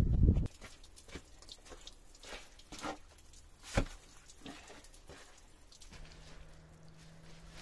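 A loud low noise that cuts off abruptly half a second in, then scattered light knocks and scuffs, with one sharper knock about four seconds in; a faint steady hum comes in near the end.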